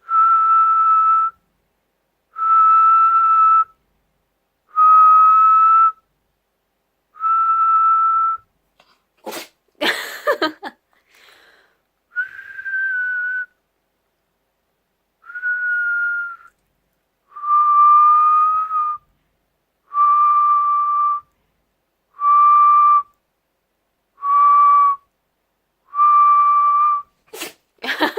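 A person whistling a single held note over and over, about eleven times, each note lasting a second or so with a short pause between. The whistling is clumsy and breathy. A short noisy burst comes about ten seconds in and another near the end.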